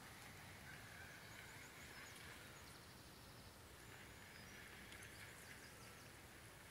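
Near silence: faint outdoor ambience with no distinct sound.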